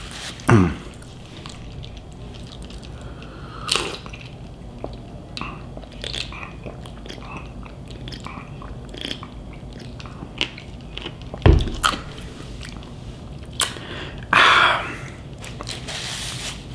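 A person chewing and biting food close to the microphone: many small mouth clicks through the chewing. There is one strong low thump about eleven and a half seconds in, and a brief rush of noise near the end.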